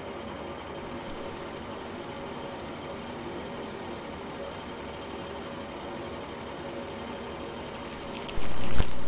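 A bathroom tap running steadily into a sink, after a brief high squeak about a second in. A loud deep low sound comes in near the end.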